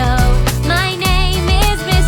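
Upbeat children's song with a steady beat, a bass line and a wavering sung melody.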